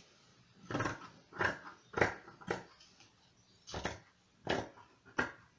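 Scissors cutting through felt: a series of about seven short snips, roughly two a second, with a pause of about a second midway.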